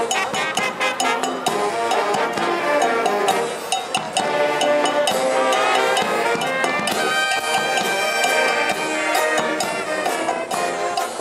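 Marching band of trumpets, saxophones and trombones playing a tune, with a steady drum beat under the horns.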